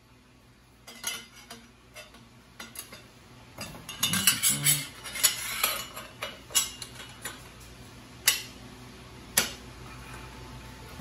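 Metal clinks and clicks as the flange nuts and steel header pipe of a racing exhaust are handled and threaded onto the exhaust studs of an Italika 150cc motorcycle engine. The clinking is busiest about four to six seconds in, with a few sharp single ticks after that.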